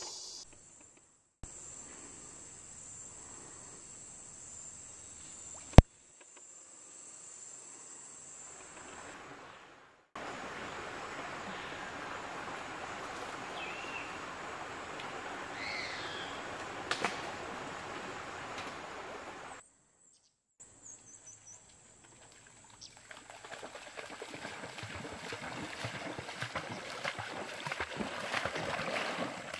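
Rainforest sound in several cuts: a steady high insect drone with one sharp click about six seconds in, then running river water with a few bird chirps, then splashing that builds toward the end as a dog wades through a shallow river.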